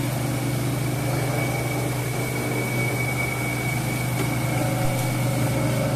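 Knife grinding machine running: a steady motor hum with a thin, high steady whine above it.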